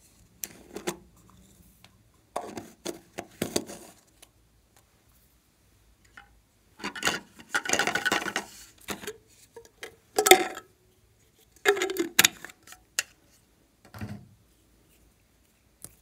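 Small plastic slime containers handled up close: tubs and nested cups clicking, knocking and scraping against each other in several short bursts, with quiet gaps between them.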